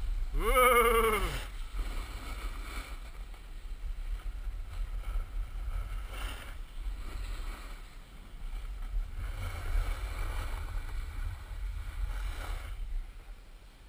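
Wind buffeting an action camera's microphone while skiing downhill, with skis sliding and scraping over groomed snow in swelling and fading stretches. A short shout with a falling pitch comes about half a second in and is the loudest sound.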